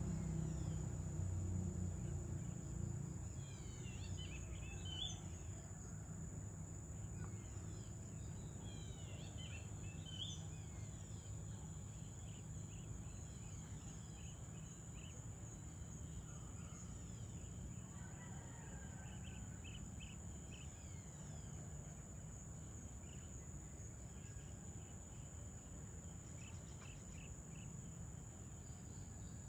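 Evening outdoor ambience: a steady, high-pitched insect drone of crickets, with scattered short bird chirps throughout. A low rumble is louder at the start and fades over the first few seconds.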